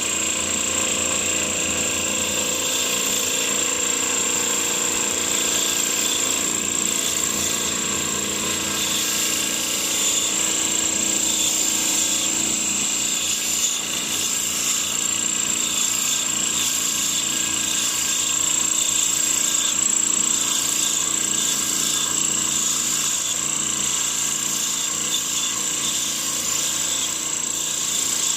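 Black and Decker electric drill driving a small band saw, its motor running steadily with a constant high whine.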